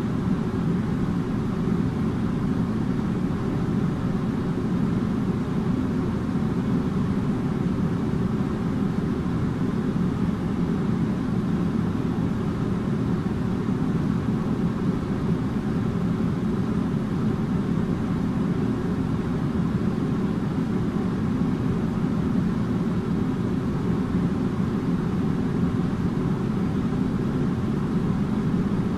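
Air conditioner running steadily, a constant low hum and airflow rush with no changes.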